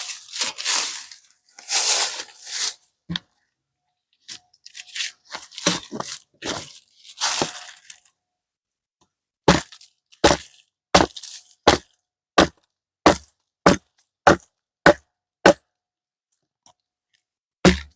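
An axe blade is scraped in a few rough strokes across a cinderblock. It then chops into wood in a steady run of sharp strikes, about one and a half a second, pausing once near the end.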